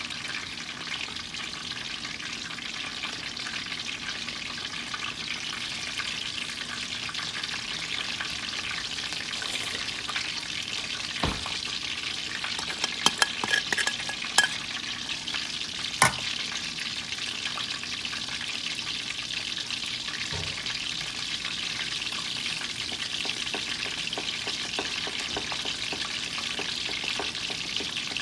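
Flour-coated chicken drumsticks shallow-frying in hot oil in a stainless steel pan, a steady sizzle. About halfway through come a few sharp clicks as metal tongs knock against a bowl.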